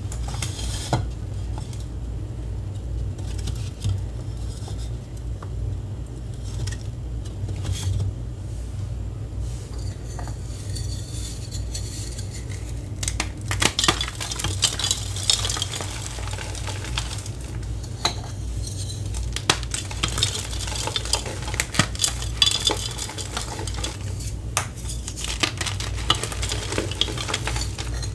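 Homemade gym chalk reform blocks (gym chalk, cornstarch, acetone and citric acid) being crushed in the hands, crunching and crumbling with crisp crackling snaps. There are a few scattered clicks at first, then dense crunching from about ten seconds in. A low steady hum runs underneath.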